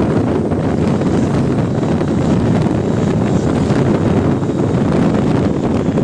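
Steady low rumble of a bus driving past, engine and road noise, with wind buffeting the microphone.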